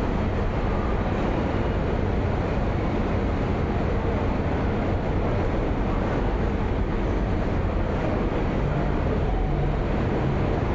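Steady ambience of a New York City subway station: continuous low, heavy noise of trains and the station, with no single sound standing out.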